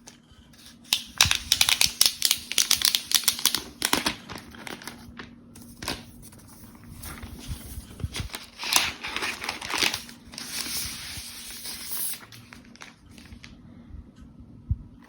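Packaging being torn and crinkled by hand. A dense crackling, tearing burst lasts about three seconds, a second one comes about halfway through, and then a softer rustle follows.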